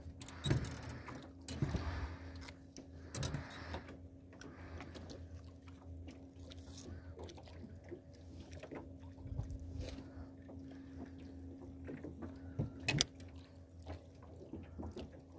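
Quiet ambience aboard a small aluminium fishing boat: a faint steady hum under scattered light knocks and clicks, with one sharper click about thirteen seconds in.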